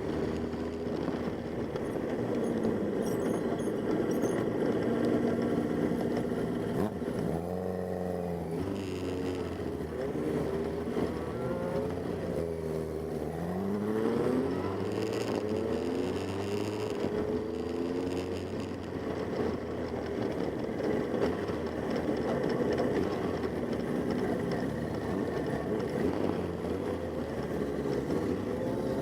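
Motorcycle engines running under way, their pitch climbing and dropping again and again as they rev up and shift.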